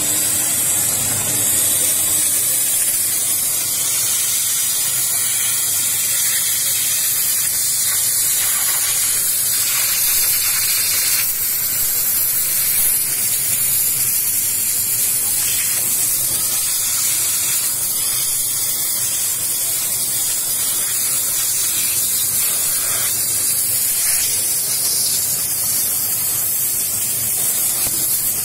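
Steady high hiss of steam jetting from the hand-held nozzle of a Scarpavapor steam-cleaning machine, held against a leather jacket, running without a break.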